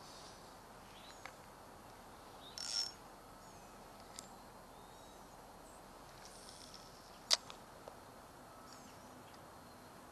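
Faint chirps of wild birds, several short calls sliding in pitch, over a quiet steady hiss. A short burst of noise comes near three seconds in, and a single sharp click, the loudest sound, comes about seven seconds in.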